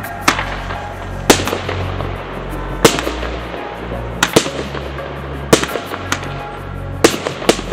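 A 36-shot 'Red Tail to Report' fireworks cake (Pyropirate A8521) firing shot after shot. Each shot is a red-tailed comet that ends in a sharp report, with a loud crack about every second and a half, some in quick pairs. Electronic background music with a steady bass runs underneath.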